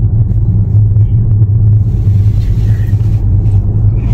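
Steady low rumble of road and engine noise heard inside a moving car.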